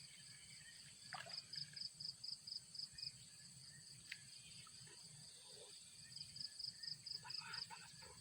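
Faint outdoor insect chorus: a steady high drone with rhythmic high chirping at about four to five chirps a second, swelling twice, with a few faint short calls beneath it.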